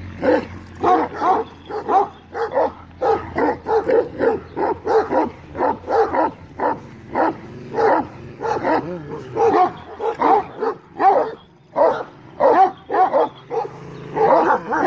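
Kangal shepherd dogs barking continuously, about two to three barks a second.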